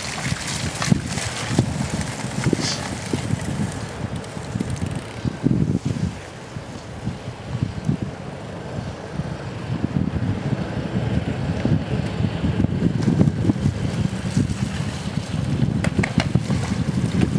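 Wind buffeting the microphone: a gusty low rumble that eases a little about six seconds in and grows stronger in the second half.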